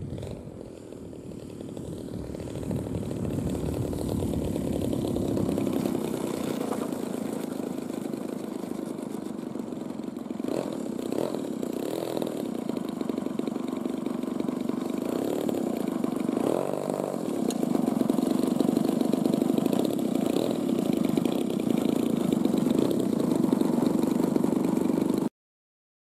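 Gasoline engine of a radio-controlled aerobatic model airplane running at low throttle, with a few quick rises and falls in pitch partway through as the throttle is blipped, louder in the second half. It cuts off suddenly near the end.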